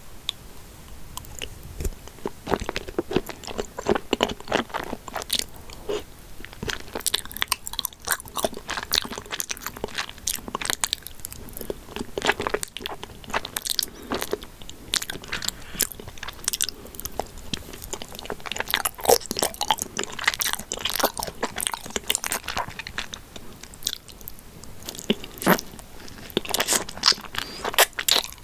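A person biting and chewing chocolate mochi, with many crisp crunchy clicks and wet mouth sounds coming irregularly throughout.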